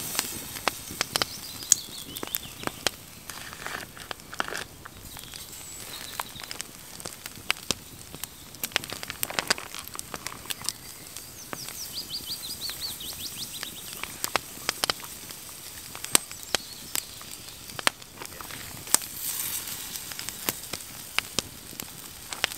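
Wood campfire crackling and popping under a grill of spare ribs, with irregular sharp pops over a low steady hiss.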